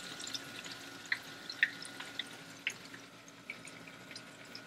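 Butter melting and sizzling in a nonstick wok: a faint, steady crackle with a few sharper pops.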